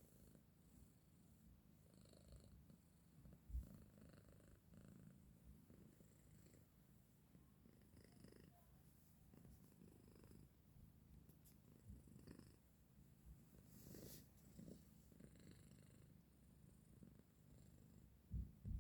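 A cat purring faintly with a low, uneven rumble. There is a soft thump about three and a half seconds in and two more near the end.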